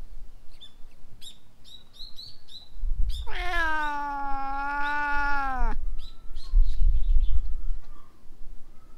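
Orange long-haired cat giving one long meow of about two and a half seconds, starting about three seconds in and dropping in pitch at the end. A few short high chirps come before it.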